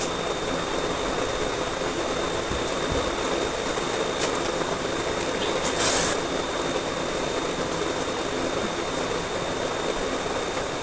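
Steady whirring of an electric room fan, with a thin high whine. A faint click comes about four seconds in and a short rustle about six seconds in.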